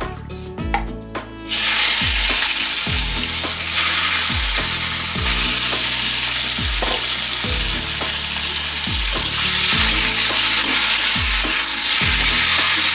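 Marinated chicken pieces hit hot mustard oil in a kadai and set off a loud, steady sizzle about one and a half seconds in, with a spatula turning the pieces near the end. Background music with a steady beat runs low underneath.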